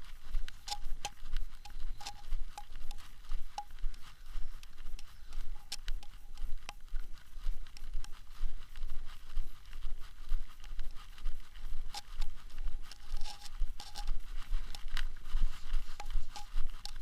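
Gusty wind buffeting the microphone in a low, fluttering rumble, with a dense run of short taps and crunches several times a second.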